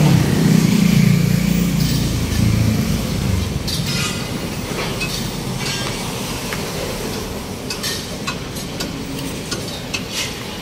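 A motor vehicle's engine rumbles past for the first three seconds or so and fades, leaving steady traffic noise with scattered light clinks and knocks.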